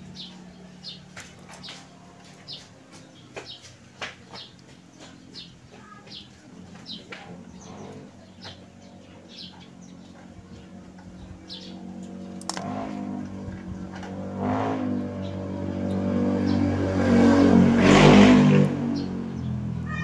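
Small birds chirping repeatedly. Underneath is a steady engine hum from a passing vehicle, which grows louder and is loudest near the end.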